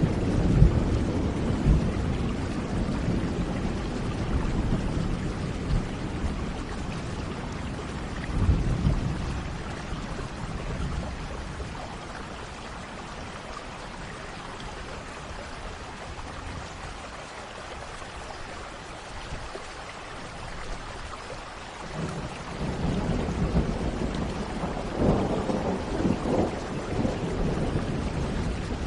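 Thunderstorm: steady rain hiss under rolling thunder. The rumble fades away in the first few seconds, swells briefly about eight seconds in, and builds again over the last several seconds.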